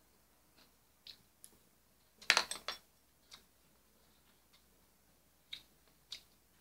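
Eating sounds: soft scattered clicks of chewing and mouth sounds, with a louder cluster of sharp clicks a little over two seconds in.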